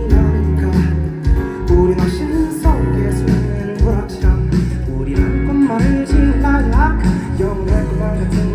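Live band playing the instrumental intro of a pop-rock song, led by guitar over a steady bass line, with a few gliding, bent notes.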